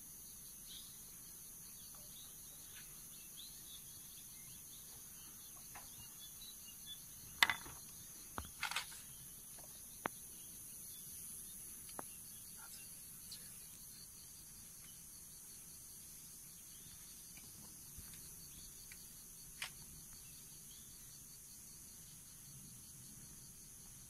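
Steady, high-pitched chorus of insects, with scattered faint bird chirps. A few sharp clicks cut through it, the loudest about seven and a half seconds and nine seconds in.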